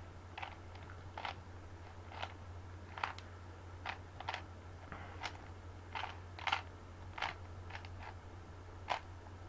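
Plastic Rubik's Cube being turned by hand: about a dozen short, irregular clicks as the layers snap round.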